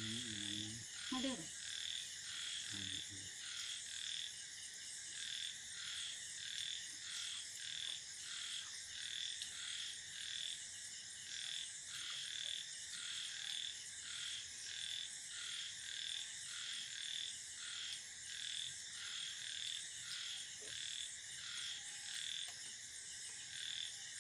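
A night chorus of frogs calling steadily in evenly repeating pulses. A person's low voice is heard briefly near the start.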